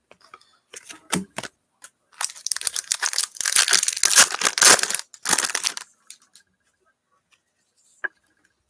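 Wrapper of a Panini Prizm football card pack being torn open and crinkled: a few short rips, then about four seconds of continuous tearing and crinkling, then quiet with a single click near the end.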